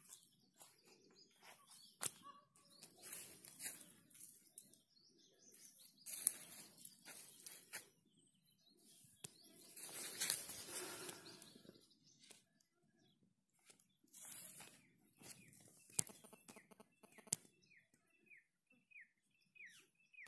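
Quiet farmyard sounds: several brief noisy rustles, a few sharp clicks, and birds chirping in short falling notes during the last few seconds.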